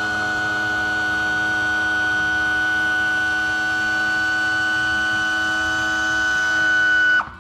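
Power tilt/trim unit on a Yamaha V-Max 200 outboard running, its electric motor and hydraulic pump giving a steady high whine as the engine tilts on its freshly greased pins and bushings. The whine grows a little louder near the end, then cuts off abruptly.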